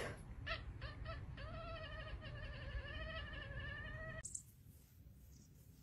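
Domestic cat vocalising faintly: two or three short chirping calls, then one long wavering yowl lasting nearly three seconds.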